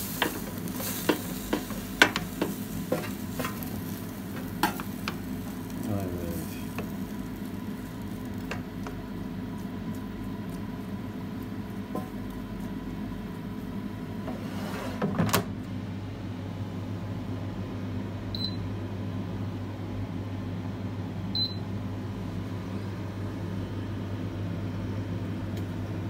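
Wooden spoon stirring and knocking chicken pieces in a HUTT D9 air fryer basket, a run of clicks and taps over the first few seconds. The air fryer hums steadily throughout, with a clunk about halfway through as a basket is slid back in, then two short high beeps a few seconds apart.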